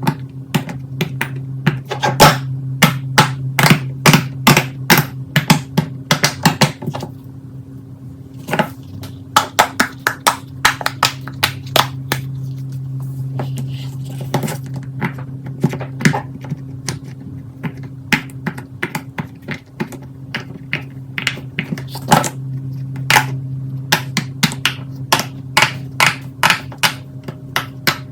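Fidget toys such as silicone pop-its being pressed and clicked by hand: clusters of rapid sharp pops and clicks with brief pauses, over a steady low hum.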